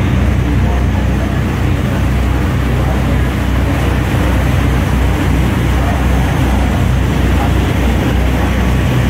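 Tour boat under way: its engines run with a steady low hum beneath the continuous rush of churning water.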